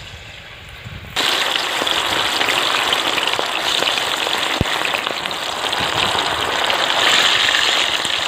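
Masala-coated fish pieces deep-frying in hot oil in a kadai: a loud, dense sizzle that starts suddenly about a second in and keeps going steadily.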